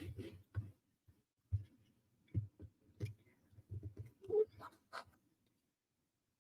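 Light clicks and dull taps of wooden puzzle pieces being handled and fitted together on a table, coming irregularly, a dozen or so over several seconds, then stopping near the end.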